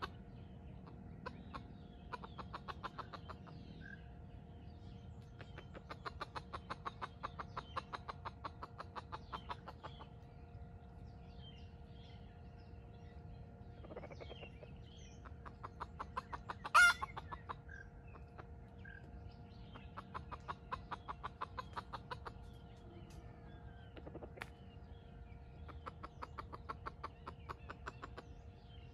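Red junglefowl rooster clucking in runs of rapid clucks every few seconds, with one short loud call about seventeen seconds in, over a faint steady hum.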